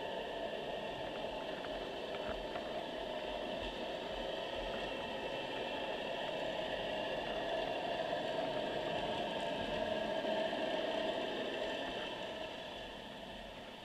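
Steady underwater noise picked up by a camera in a waterproof housing: a muffled hiss with a low drone. It swells for a few seconds past the middle and eases near the end.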